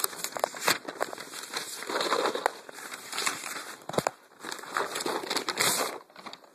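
Packaging rustling and crinkling as it is handled, with many small irregular clicks and knocks.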